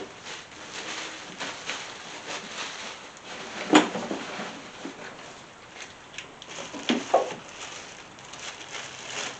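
Handling noise from ignition coil packs being set down and new ones picked up: light rustling and small knocks, with a sharp knock about four seconds in and another near seven seconds.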